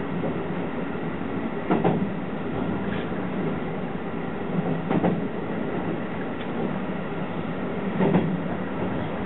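Keihan 13000 series electric train running along the track, heard from inside at the front of the train: a steady running rumble, with three clacks of the wheels over rail joints about three seconds apart.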